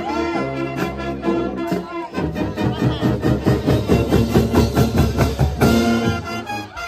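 High school marching band playing: held brass chords, then brass and drums on a fast, steady beat of about five strokes a second. The music stops shortly before the end.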